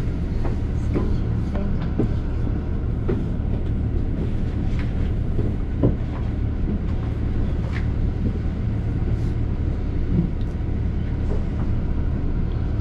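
Double-decker bus in motion, heard from inside: a steady low engine and road rumble with frequent short rattles and knocks.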